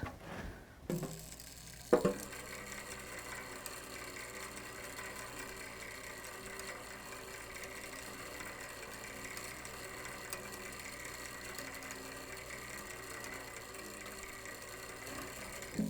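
Rescued clockwork gear train running while it sits on a spring contraption with a sweet-tin resonator. It gives a steady mechanical whirr with many held tones. A couple of knocks come in the first two seconds as it is set down.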